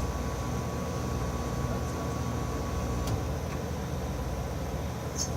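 Steady low rumble of background noise, with a faint click about three seconds in and a brief high chirp near the end.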